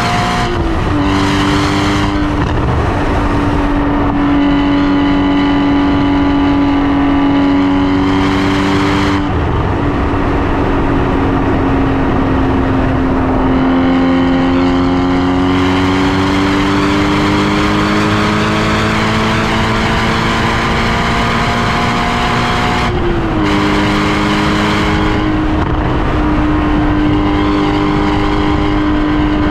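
Porsche Cayman GT4 (981)'s 3.8-litre flat-six boxer engine running under load, its pitch drifting slowly up and down. The pitch drops suddenly three times: about a second in, about a third of the way through and near the end, as at upshifts.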